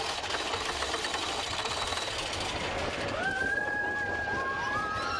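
Mine-train roller coaster cars rattling and clattering along the track, heard from a seat on the moving train. About three seconds in, a long high held tone sets in, and a couple more join it near the end.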